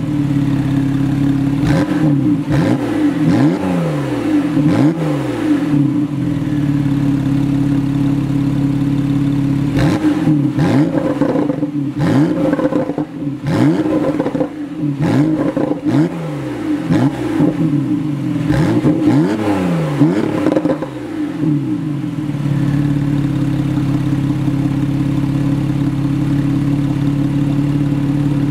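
Porsche 911 Targa 4 GTS (991.2) 3.0-litre twin-turbo flat-six heard at the tailpipes, revved in a series of quick throttle blips, its pitch rising and falling about once a second. It settles to a steady idle for the last several seconds.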